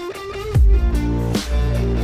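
Background music: an electronic track with guitar notes over heavy bass hits that drop in pitch in a steady beat.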